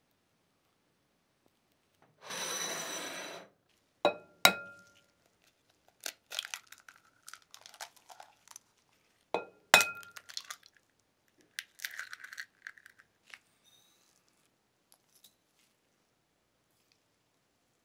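A glass mixing bowl slides onto a countertop. Two eggs are then cracked on the glass, each with two sharp taps that make the bowl ring, followed by shell crackling as the egg is opened into the bowl.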